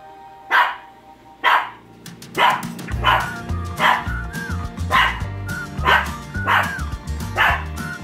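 A Shih Tzu barking repeatedly, about one short bark a second, over background music whose beat comes in about three seconds in.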